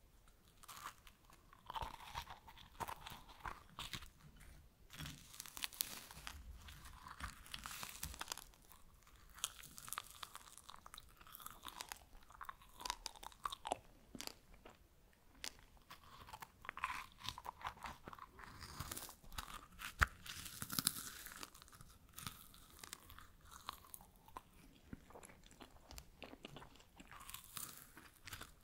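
Freeze-dried strawberries being bitten and chewed: dry, brittle crunching in irregular clusters of crackles, with one sharper crack about twenty seconds in.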